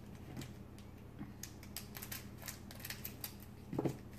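Faint crinkling and scattered small clicks of a foil trading-card booster pack wrapper as it is worked open by hand.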